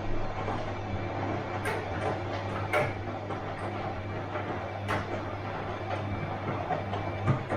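Bosch washing machine running through a wash: a steady low hum with the churning of the drum, and several short sharp clicks and knocks scattered through it.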